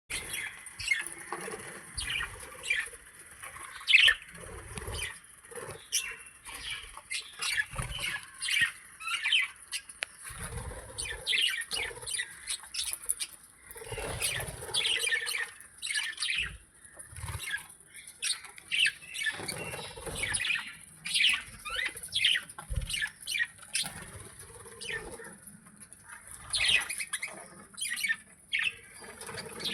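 Many birds calling together, a busy run of short chirps and squawks overlapping throughout, over a steady high hiss.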